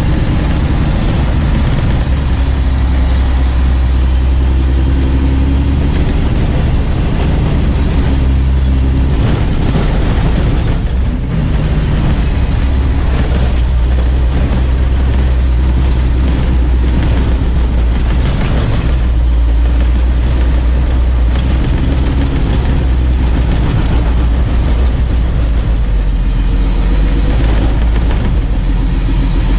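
Heavy harvest machinery engine running steadily under load, a deep rumble whose pitch shifts a few times, with a steady high whine on top.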